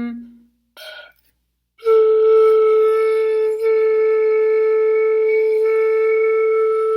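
Flute headjoint blown on its own: a brief breathy puff about a second in, then one long steady tone with plenty of air noise in it, starting about two seconds in, with a short dip in the middle of the note.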